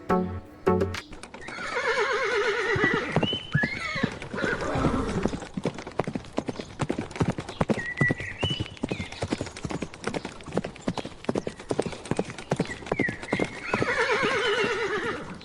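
Horse whinnying twice, about a second in and again near the end, over a steady clip-clop of hooves.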